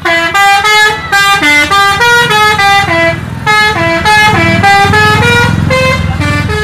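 Hino tour bus's multi-tone musical air horn, the 'telolet' kind, playing a fast melody of short stepped notes, about four a second, over the low running of the bus's engine.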